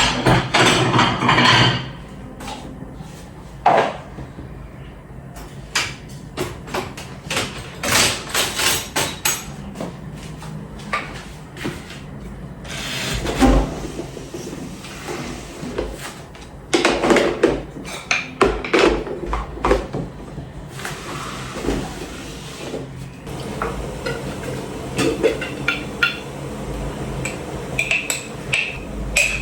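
Kitchen handling sounds: dishes, jars and utensils knocked and set down, in scattered knocks and clatters with short noisy stretches between.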